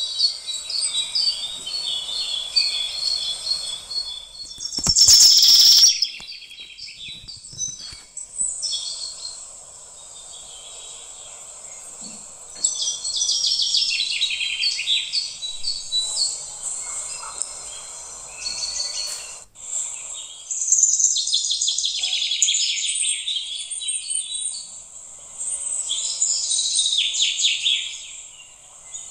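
Dense high-pitched chirping of many small birds, with a loud brief burst about five seconds in.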